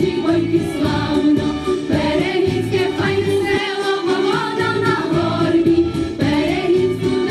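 A group of girls singing a Ukrainian folk song together, with music underneath.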